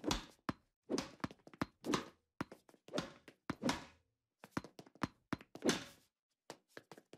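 Racquetball play: a rubber ball struck by a racquet and bouncing off walls and floor, heard as a rapid, irregular series of sharp hits, some with a short echo. The hits pause briefly about four seconds in, then resume.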